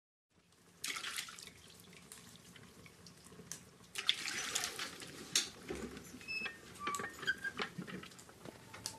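Water splashing in a tub as a person washes herself by hand, with a first splash about a second in, a longer run of splashing about four seconds in, and small drips falling back into the water.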